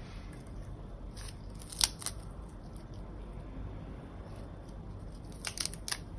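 Crisp lettuce leaves crackling as they are snapped apart and pressed onto a sandwich. A few short sharp crackles come about one and two seconds in, and a quick cluster comes near the end.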